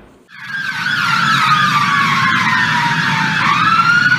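Emergency vehicle sirens. About half a second in, one loud wail starts and falls slowly in pitch for about three seconds before rising again, with a second, faster-warbling siren behind it and a low traffic rumble underneath.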